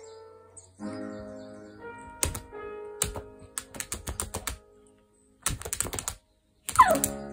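Light plucked-guitar music, with runs of sharp taps and clicks from a dog's paws patting at a tablet screen. The sound drops out twice, briefly, near the end.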